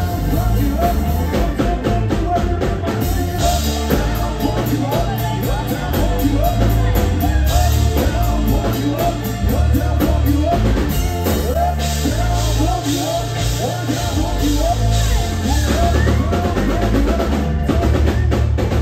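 Live band playing loudly: singing over a drum kit, bass guitar and electric guitar, with a heavy bass line.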